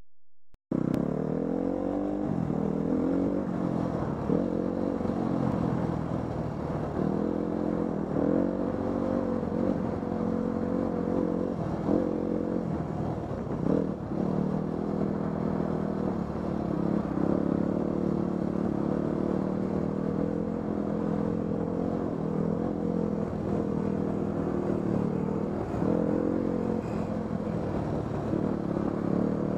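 Dirt bike engine running on a trail ride, its pitch rising and falling again and again as the throttle opens and closes. It starts suddenly about a second in and is broken by a few knocks.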